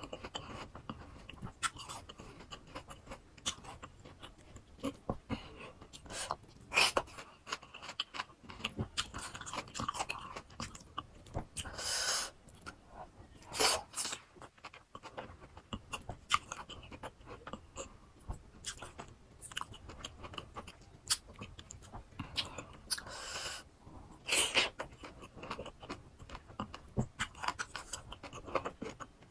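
Close-miked chewing of crisp fresh fruit, a run of wet crunches and mouth clicks, with a few louder crunchy bites now and then.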